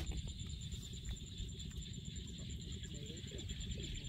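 Hands digging and squelching in wet mud and shallow water for mud clams, over a steady high-pitched insect drone and a few short, faint animal calls.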